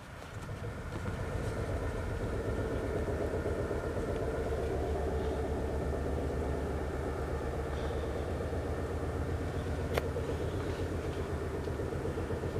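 A loud, low knocking rumble that pulses rapidly, with a steady hum above it. It swells over the first couple of seconds and then holds steady, and there is a single sharp click about ten seconds in.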